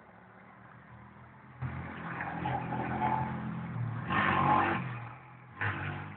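An engine running, starting abruptly about one and a half seconds in as a steady low hum and growing louder to a peak just past the middle before easing off.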